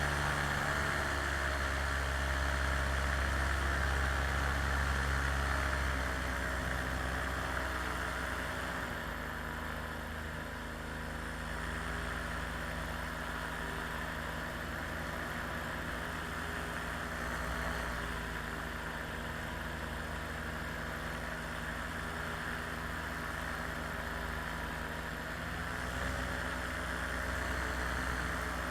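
Small aircraft engine running steadily in flight, its note and loudness easing down a little about seven seconds in and picking up slightly near the end.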